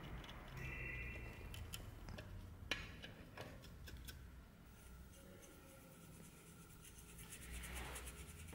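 Faint scratching and rubbing with a few small sharp metallic clicks from handwork on the brass-wire grip wrap of a sword hilt. The sharpest click comes a little under three seconds in.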